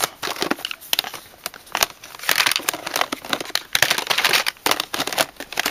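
Hands rummaging through a drawer of plastic makeup cases and packaging: a loud, continuous clatter of small knocks and crinkling plastic.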